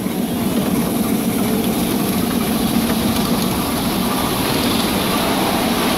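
Steady rumbling noise of an open riding car rolling along the track of a small steam railway.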